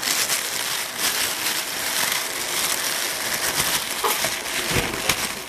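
Loud, dense crackling and rustling noise on a covert recording, like a microphone rubbing against cloth, with a faint voice breaking through about four seconds in.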